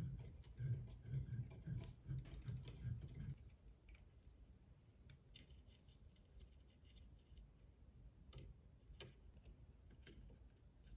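Faint handling noise from assembling a 3D printer: dull knocks and rubbing as the aluminium X-axis gantry is fitted onto the frame, then after about three and a half seconds only small scattered clicks as fingers work the timing belt into the print-head carriage.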